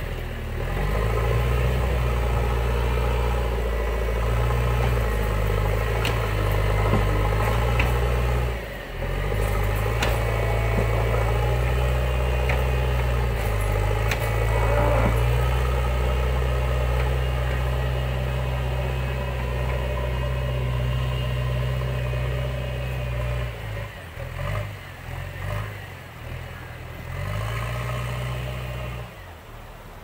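JCB 3DX backhoe loader's four-cylinder diesel engine running steadily as the machine backs up the dirt track. The engine note dips briefly about a third of the way in, and in the last few seconds it falls away and wavers.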